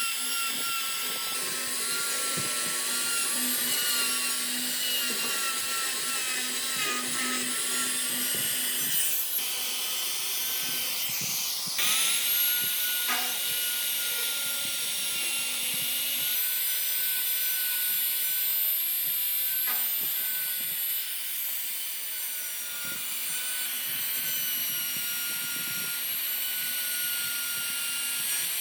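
High-speed power tool motor whining steadily as it cuts into wood, with hissing cutting noise. About twelve seconds in, the pitch dips briefly under load and then climbs back.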